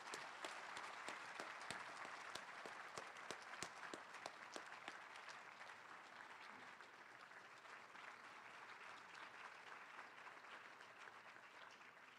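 Audience applauding, many hands clapping at once, starting right away and easing off gradually toward the end.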